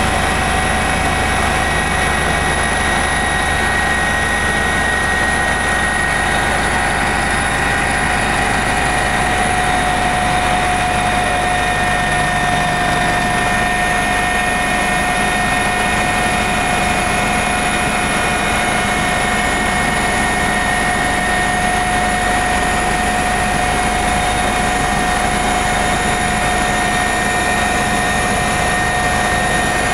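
Eurocopter EC145 twin-turbine helicopter running steadily in flight, a constant turbine whine over the rotor noise.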